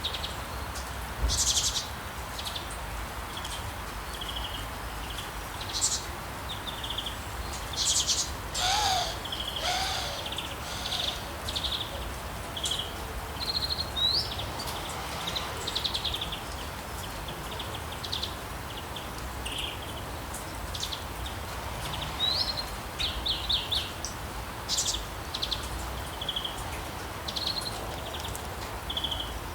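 Steady rain falling, with birds singing throughout: many short high chirps and trills, a couple of rising whistles, and a lower wavering call about nine seconds in.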